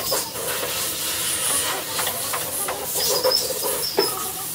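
A steady hiss with scattered sharp knocks, the loudest about four seconds in.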